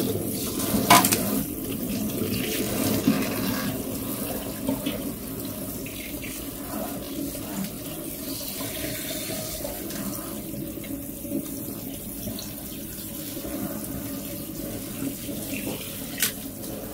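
Kitchen tap running steadily into a stainless steel sink as clam meat is rinsed by hand in a metal colander, the water splashing over the meat and colander. A couple of sharp clinks, one about a second in and one near the end.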